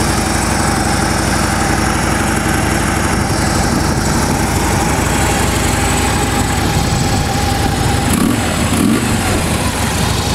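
2015 Harley-Davidson Ultra Classic's 103-cubic-inch V-twin, freshly started, idling steadily through its factory headers and slip-on mufflers. It sounds healthy, with nothing alarming in the motor.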